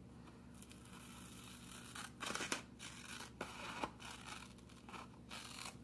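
Scissors snipping through paper, cutting a straight slit into a paper circle: quiet, separate snips that start about two seconds in and come every half second or so.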